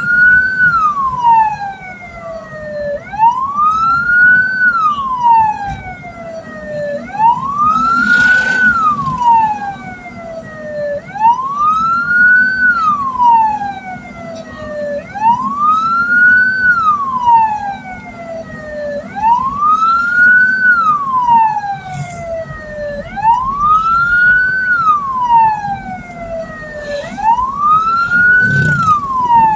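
A hearse's wailing siren, its pitch rising quickly and then falling slowly, repeating about every four seconds over a steady low hum.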